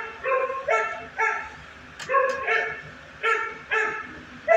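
Dog barking repeatedly, about eight sharp barks that come mostly in pairs about half a second apart.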